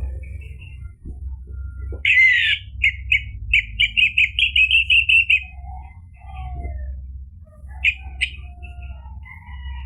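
Orange-headed thrush singing: about two seconds in comes a loud, rapid string of repeated high notes lasting some three seconds, followed by softer, lower whistled phrases and a couple of sharp notes. A steady low hum runs underneath.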